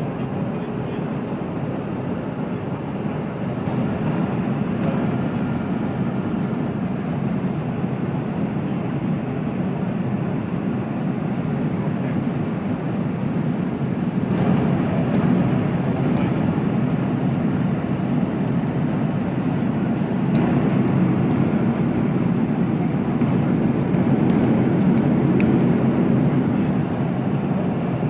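Steady rushing noise of an airliner cabin, with a few light clicks scattered through as the metal lap-belt buckle is handled and latched.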